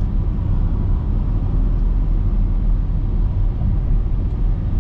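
Steady low rumble of a car on the move, heard from inside the cabin: road and engine noise with no distinct events.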